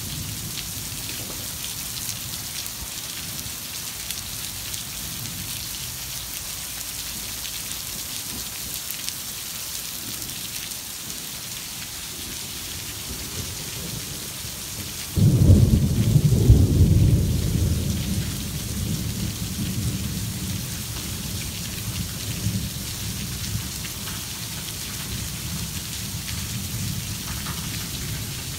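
Torrential rain pouring down steadily. About halfway through, a loud clap of thunder breaks suddenly and rolls on as a low rumble that fades slowly.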